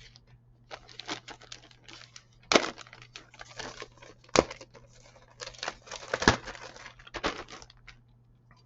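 Plastic bags crinkling as plastic model-kit sprues are handled, in irregular rustling bursts with three sharp plastic clacks, then quiet near the end.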